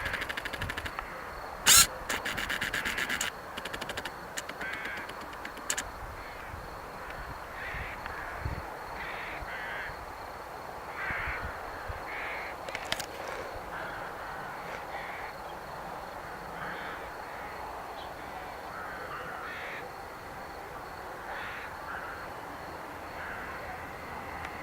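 Crows cawing repeatedly in short, irregular calls over a steady outdoor background. A sharp click and rapid runs of clicking come in the first few seconds.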